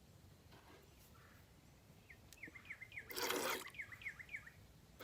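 A small bird chirping in a quick run of about a dozen short notes, some four or five a second. About three seconds in, a brief hissing burst is the loudest sound.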